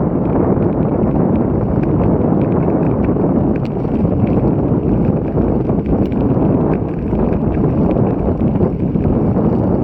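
Wind buffeting an action camera's microphone as a loud, steady rumble while riding a bicycle in strong typhoon wind, with a few faint ticks scattered through it.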